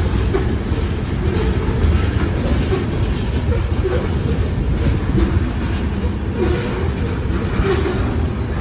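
Covered hopper and tank cars of a CSX mixed freight train rolling past close by, their steel wheels running steadily on the rails.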